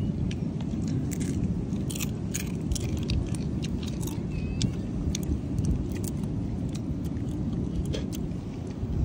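Steady low wind rumble on the microphone, with scattered sharp clicks.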